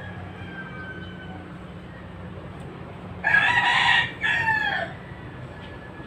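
A rooster crowing once, about three seconds in, in two parts with the second falling off at the end. A steady low hum runs underneath.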